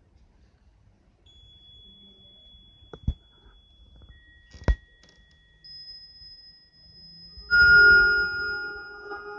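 Electronic tones from a gallery sound installation: thin, steady pure tones come in one after another, two sharp clicks sound about three and about four and a half seconds in, and near the end a sudden loud chord of several bell-like tones rings on.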